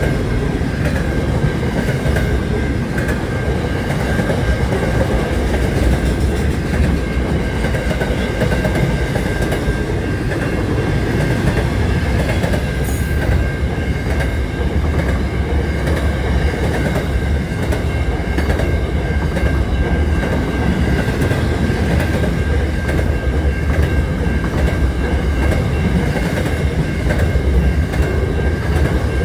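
Freight train of container wagons rolling past at a level crossing: a steady, loud rumble of wheels on the rails, with a steady high tone above it.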